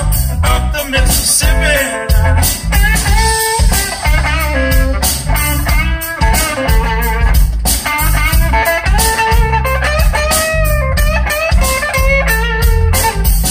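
Blues track with electric guitar, drums and heavy bass, played loud over the car's aftermarket Morel Elate Titanium speakers and Audison subwoofer and heard in the cabin.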